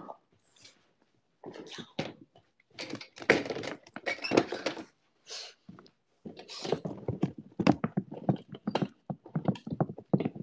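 Phone microphone handled and jostled at close range: irregular rustling and thunks, in clusters with short gaps, busier in the second half.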